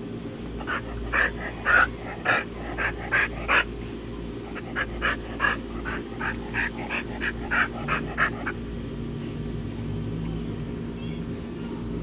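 Dog panting in quick short breaths, about three a second, in two runs with a break about four seconds in. A steady low hum lies underneath.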